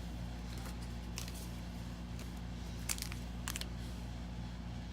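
A few short crinkles and ticks from a foil Pokémon booster pack being handled, over a steady low hum.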